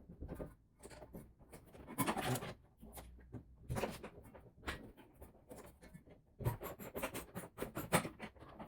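Hand tools working on the rear suspension bolts of a Mazda Miata: irregular metallic clicks and clinks, coming faster in the last couple of seconds.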